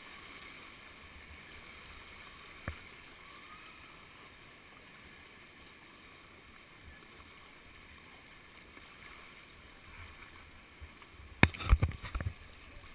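River current rushing around a whitewater kayak in a steady hiss. A single sharp knock comes near the third second, and about eleven seconds in a quick cluster of loud sharp knocks and splashes is the loudest sound.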